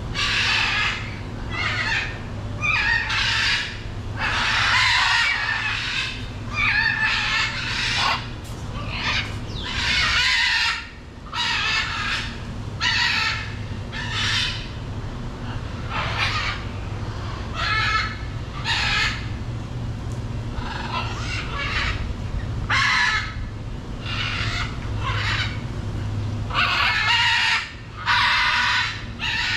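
Macaws squawking and screeching over and over, harsh loud calls coming every second or so with short gaps, over a steady low hum.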